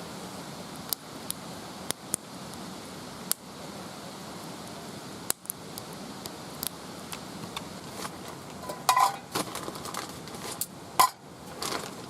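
Wood fire crackling with scattered sharp pops, then a few louder metallic clinks and knocks near the end, like metal pots or utensils being handled.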